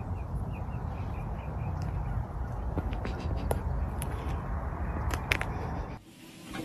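Outdoor background noise, heaviest in the low end, with a quick run of faint high chirps over the first two seconds and a few sharp clicks later. It cuts off abruptly near the end.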